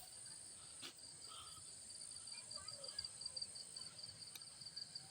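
Insects, crickets by their sound, chirping faintly in a rapid, even pulsing trill over a constant higher buzz, with a faint click about a second in.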